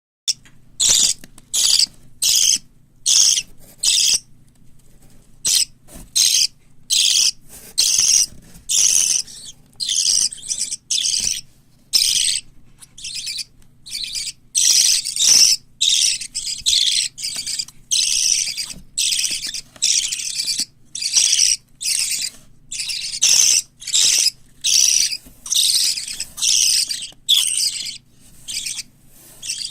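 Young parrot chicks (white lovebird, cockatiel and budgerigar) calling over and over: raspy, high calls about once or twice a second, over a faint steady low hum.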